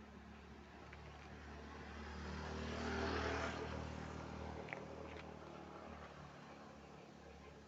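A road vehicle passing by. Its engine hum and tyre hiss grow louder to a peak about three seconds in, then fade away.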